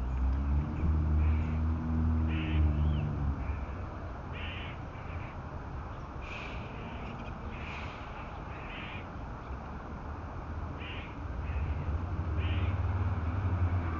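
Squirrel alarm calls, short sharp calls repeated at irregular intervals, warning of a predator. A low hum, loudest in the first few seconds and again near the end, sounds beneath them.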